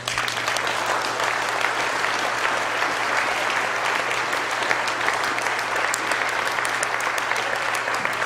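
A room full of people applauding, breaking out all at once and then holding steady.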